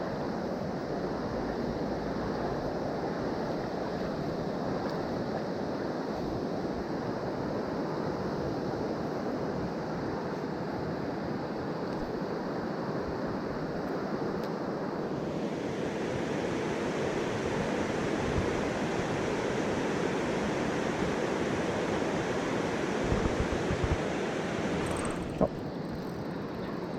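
Mountain stream water rushing steadily. About halfway through, the rush turns brighter and hissier, and there is a single sharp click near the end.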